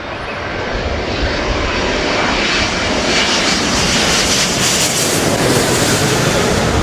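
Jet engines of a twin-engine wide-body airliner on landing approach, gear down, passing low overhead: a steady roar that grows louder over the first few seconds, then holds.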